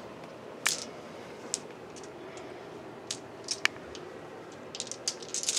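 Light clicks of plastic gaming dice being gathered and handled on a tabletop: scattered single clicks, then a quick run of them near the end.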